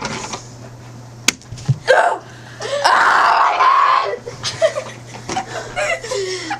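A sharp smack about a second in, then people's voices: a loud yell lasting about a second, around three seconds in, among short cries and laughter.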